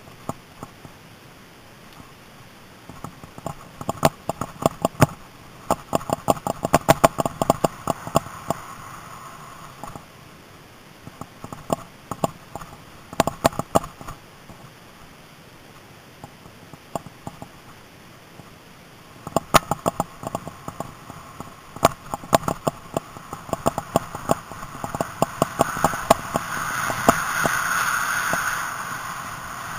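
Mountain bike rattling and clattering over a rough trail: bursts of quick sharp knocks as it hits bumps, with quieter coasting stretches between. A rushing noise swells in near the end.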